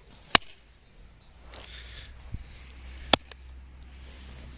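Two sharp knocks of a steel hammer striking an old smartphone lying on grass: a loud one about a third of a second in and another about three seconds in.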